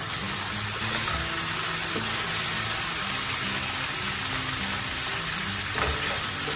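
A stir-fry of cucumber, wood ear fungus and chicken sizzling in a nonstick pan over a gas flame while being stirred and turned, a steady frying hiss with a few short clicks of the metal spoon and spatula against the pan.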